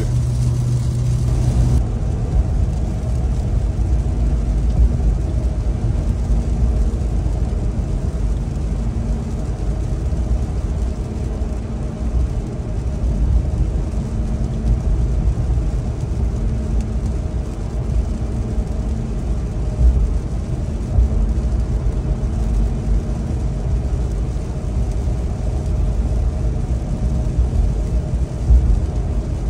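Steady in-cabin noise of a Ram 1500 TRX pickup driving on a rain-soaked road, mostly a low rumble with a hiss over it.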